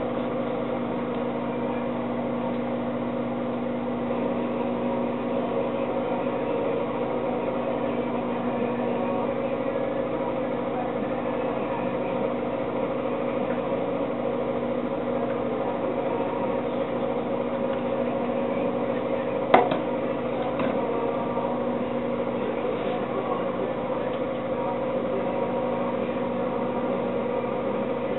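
A steady machine hum that holds the same pitch throughout, with a single sharp click about twenty seconds in.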